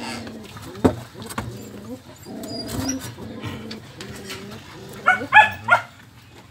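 Young puppies making low, drawn-out whining sounds, then three short, sharp yelps about five seconds in. A single knock about a second in.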